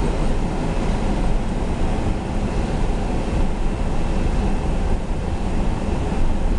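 Double-stack intermodal freight train rolling past: a steady rumble of well cars' wheels on the rails.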